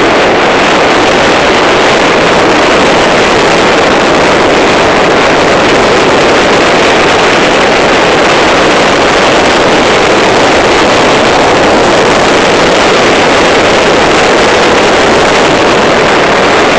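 Steady, loud wind and road noise from a motorcycle moving at highway speed, with wind rushing over the microphone and the engine running underneath.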